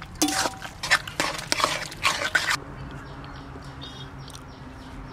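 A spatula scraping and stirring a thick vegetable curry in a metal kadai, a run of quick strokes that stop about two and a half seconds in, followed by a low steady hum.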